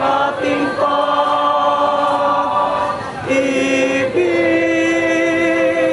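Choir singing long held chords, moving to a new chord about a second in, again near three seconds and just after four seconds.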